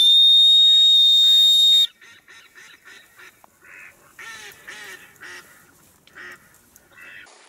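A loud, steady, high-pitched whistle blast lasting about two seconds, then a string of short duck quacks.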